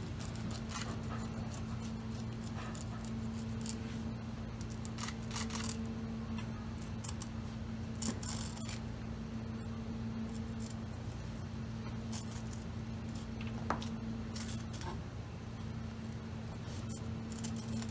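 Kitchen knife slicing and scraping along an eel on a cutting board: scattered light scrapes and clicks, with a couple of sharper knocks, over a steady low hum.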